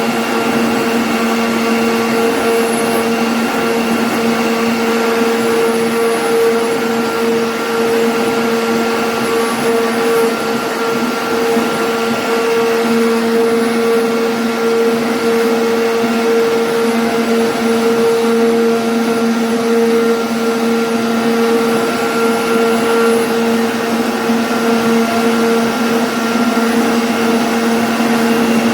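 CNC router spindle running at a constant speed with a steady whine while it cuts a 2D jali pattern in MDF.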